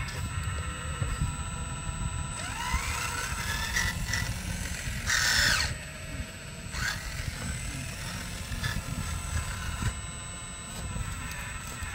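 Radio-controlled scale Volvo excavator at work: its electric drive motors whine steadily as the arm digs and the upper body swings, with the pitch rising and falling a few times. There is a short, louder rasping burst about five seconds in.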